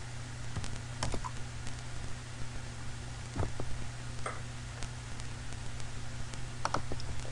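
A handful of short, sharp clicks from working a computer's mouse and keys, some in quick pairs, over a steady low hum.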